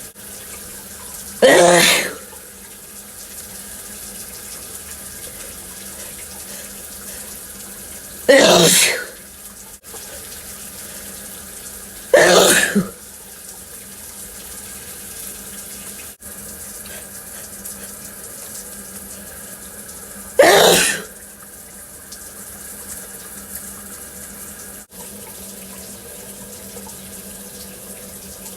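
A person sneezing loudly four times, each sneeze a short, sudden burst several seconds apart, over a steady hiss.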